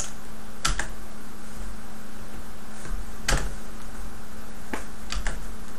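Several separate clicks of computer keys at irregular intervals, the loudest about three seconds in, over a steady low hum.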